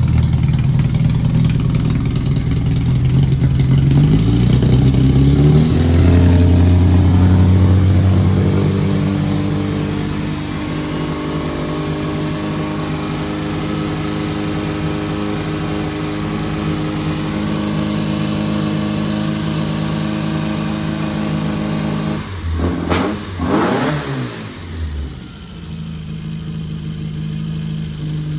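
Classic Austin Mini Cooper's four-cylinder A-series engine running, its revs climbing a few seconds in and holding, then a quick rev up and back down near the end before it settles to a lower idle. The engine is being tuned, with the distributor and fuel adjusted, and is now running well.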